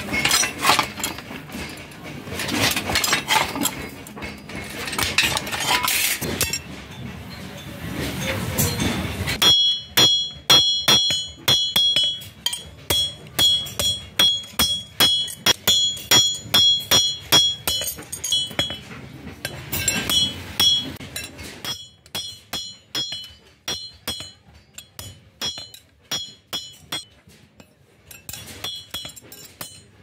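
Hand hammer striking a steel strip on a steel block, each blow ringing high and metallic, about two blows a second, softer and sparser in the last third. Before the hammering, for about the first nine seconds, a harsh grinding noise while sheet steel is cut on a hand lever shear.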